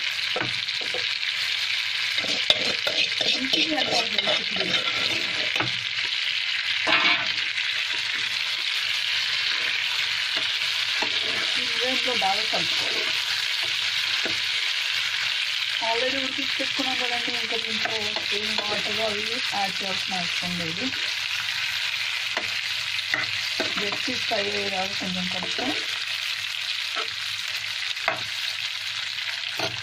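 Chicken gizzards and onions frying in hot oil in a non-stick pan, a steady sizzle, while a spatula stirs them with occasional scrapes and knocks against the pan.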